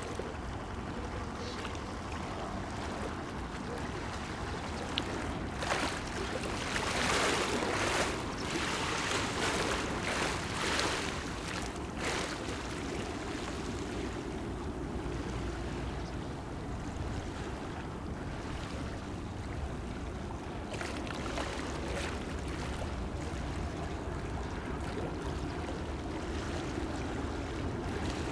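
Seaside ambience of water washing and wind, with a louder stretch of surging noise between about 6 and 12 seconds in and a briefer one about 21 seconds in.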